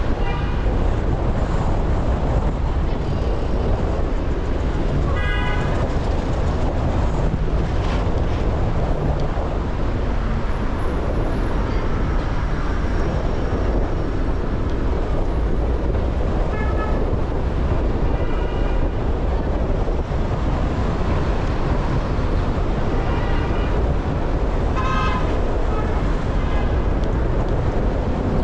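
Steady city traffic and road noise, a continuous rumble and hiss, with several short car-horn toots scattered through it.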